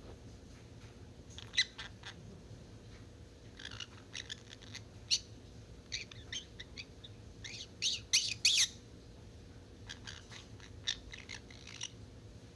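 Young green-cheeked conure chick giving short chirps and squawks in scattered little bursts, with the loudest cluster about eight seconds in; a baby bird trying out its voice.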